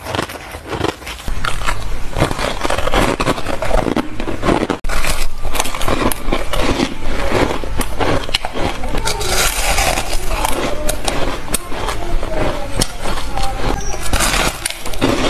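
Close-miked crunching and crackling of bites into clumps of packed snowy ice, with scraping of the ice. The sound gets louder and denser about a second in.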